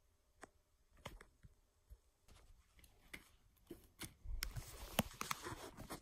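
Hands handling a cardboard toy box and a toy: quiet scattered clicks and taps, with a louder cluster of knocks and rustling about four to five and a half seconds in.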